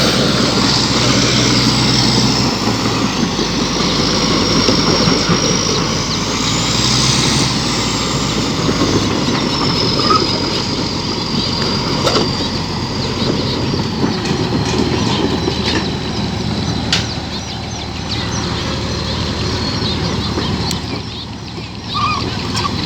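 Heavy diesel machinery running steadily, with a high whine that rises and falls in pitch over the first half and a change in the low engine note about nine seconds in.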